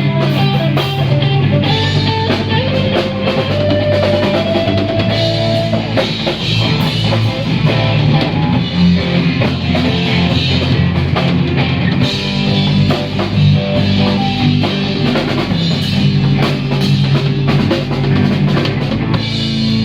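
Live rock band playing an improvised instrumental jam: a drum kit keeping a steady beat under guitar, with no vocals.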